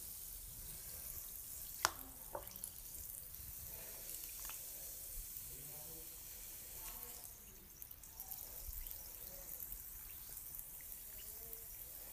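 Bath bomb fizzing faintly in water, with light sloshing, drips and small splashes as a hand moves it through the water.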